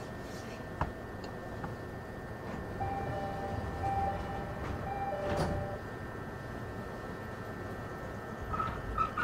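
Cabin ambience of a JR 209 series Nambu Line electric train standing at a station. The onboard equipment hums steadily, with a few sharp clicks and a short run of steady beeping tones in the middle. A run of chime tones starts near the end.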